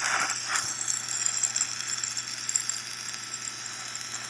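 Audio playback of HAARP induction magnetometer data, a day of readings compressed into seconds. It is a steady hiss with faint high whining lines, the faint background noise of the multi-line resonance.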